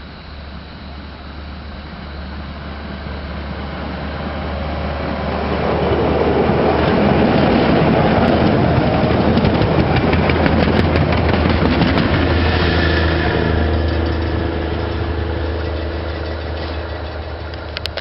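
Diesel track-maintenance motor car approaching on the rails, passing close by and running off. Its engine drones steadily, growing louder for about six seconds and then fading, with a run of clicks from the wheels as it goes by.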